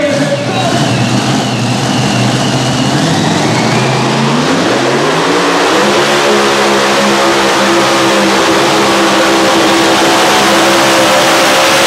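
Mini Unlimited pulling tractor's supercharged engine running at a steady low speed, then revving up about four seconds in and holding high revs as it starts the pull.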